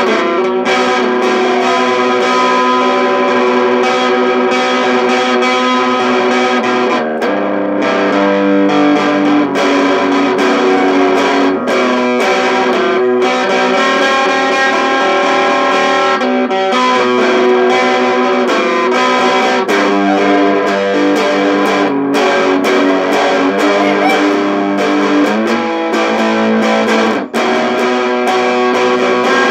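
Squier Super Strat electric guitar played through an Orange Micro Terror valve-preamp amp head with distortion: sustained overdriven chords and notes with frequent picked attacks, changing pitch every second or two.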